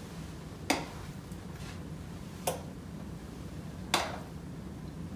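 A metal spoon clinks against a glass bowl three times, short sharp knocks about a second and a half apart, as chocolate pudding is scooped out. A faint low hum runs underneath.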